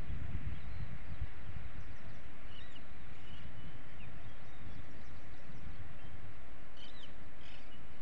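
Open-air ambience: a steady low rumble of wind on the microphone, with short bird chirps a few times, a cluster of them about seven seconds in.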